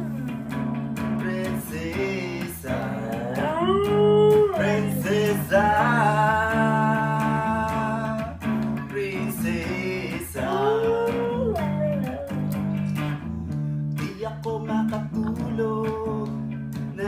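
Electric guitar played with a man singing, and a dog howling along in long notes that rise and fall.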